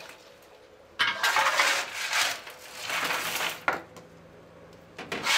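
A steel coal shovel scraping across a steel plate, with lumps of coal clattering, as coal is hand-shovelled to lay the fire in a steam locomotive's firebox. The scraping starts about a second in and comes in two spells, with a single sharp clank between them.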